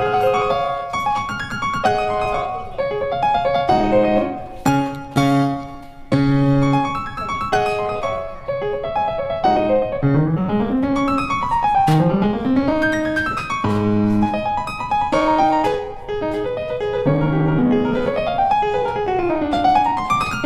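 Background piano music, with runs of notes sweeping up and down.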